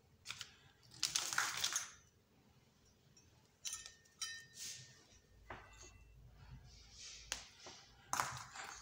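Handling noises from mixer-grinder motor parts being picked up and set down: irregular light clicks and metallic taps with bouts of rustling, the loudest about a second in and again near the end.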